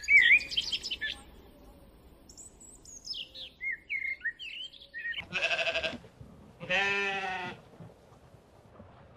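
A few bird chirps, then an animal bleating twice, one short call about five seconds in and another about seven seconds in.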